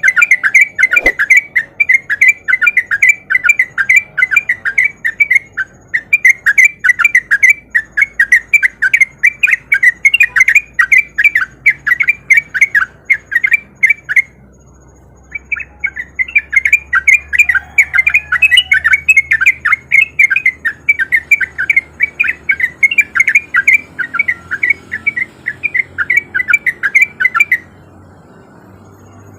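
Yellow-vented bulbul (trucuk) singing in long, fast runs of rapidly repeated notes, the rapid 'ropel' delivery used as a lure to set other bulbuls singing. The song breaks briefly about 6 s in and for about a second after 14 s, then stops near the end.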